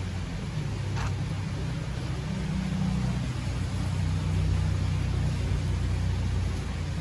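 Steady rain falling, with a vehicle passing on the wet street beyond the gate: a low engine and tyre rumble swells about two seconds in and eases near the end.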